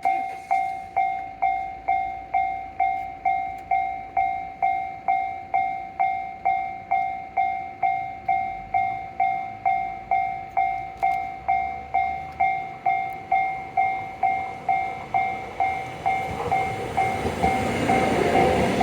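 Level-crossing warning bell ringing at about two strikes a second, each strike dying away quickly. From about sixteen seconds in, the rising rumble and rush of an approaching 813 series electric train builds up under the bell.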